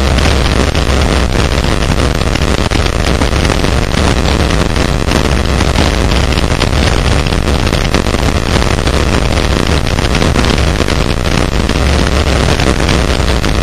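Wind rushing over a GoPro's microphone while a mountain bike speeds down a rough dirt trail: a loud, steady rush with a deep rumble, flecked with constant small knocks and rattles from the tyres and bike over the bumps.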